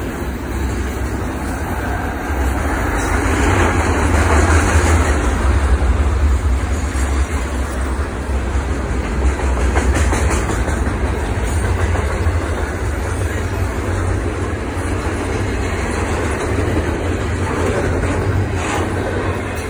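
Double-stack intermodal container cars rolling past at speed, a steady rumble with the steel wheels clicking and clattering on the rails.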